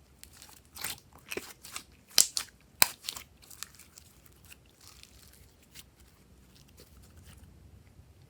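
Glossy slime being squished and worked by hand, giving a run of sharp pops and crackles. The two loudest snaps come about two and three seconds in, and softer crackles trail off before the end.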